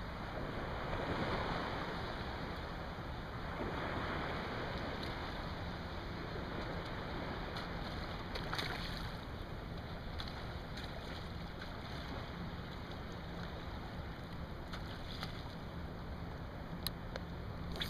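Steady wind on the microphone over small waves lapping on calm salt water, swelling twice in the first few seconds, with a few faint ticks later on.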